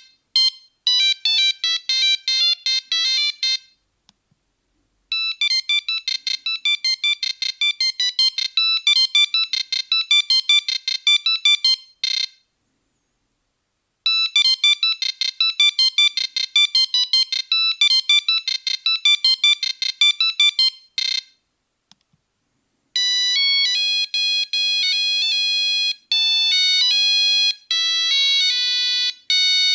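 Nokia 3310 monophonic ringtones: fast, high, beeping one-note-at-a-time melodies that stop and start again after short pauses, the middle tune playing twice. About 23 seconds in, a different tune begins with longer held notes.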